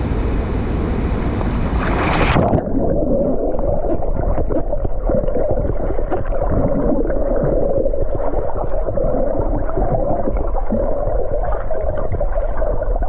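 Rushing, splashing water for about two seconds, then the sound suddenly goes muffled as it is heard from underwater: a steady dull rumble and gurgling of water while swimming.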